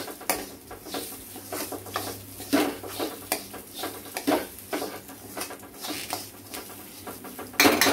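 Steel spoon scraping and stirring split moong dal in a stainless steel pan, with irregular scrapes and rattles of the lentils against the metal. The dal is being dry-roasted until its raw smell goes.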